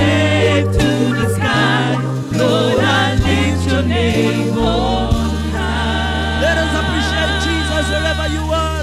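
Live church praise band performing a gospel song: a lead singer and backing vocalists sing over a stepping bass line. About five seconds in, the voices hold a long note with vibrato over one sustained bass note.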